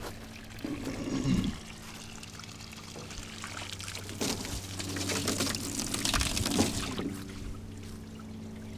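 Water pouring and splashing, heaviest from about four to seven seconds in, over a steady low hum.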